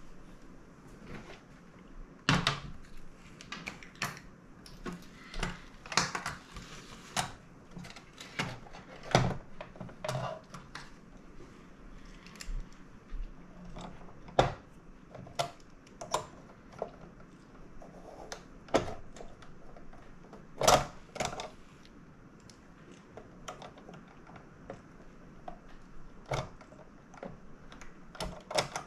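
Hard plastic parts of a Teenage Engineering PO-80 Record Factory kit being handled and fitted together: irregular clicks, taps and knocks, a few of them sharp and loud.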